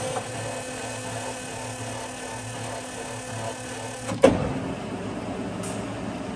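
LeBlond engine lathe's geared headstock running with a steady mechanical hum. About four seconds in, a loud clunk as the spindle is engaged and the three-jaw chuck starts turning, after which the gear noise changes.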